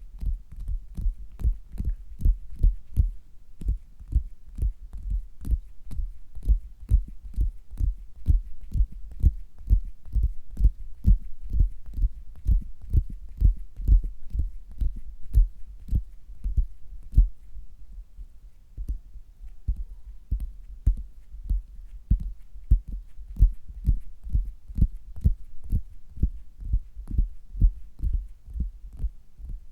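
Tapping on a stomach picked up through a stethoscope: a steady run of dull, low thuds, a few a second.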